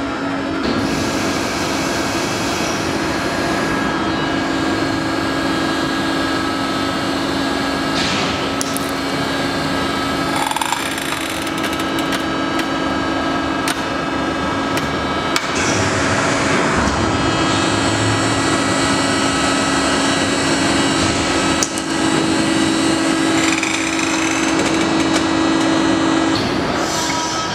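Hydraulic press running with a steady pump drone as its ram comes down on a steel wristwatch, with a few sharp cracks as the watch gives way.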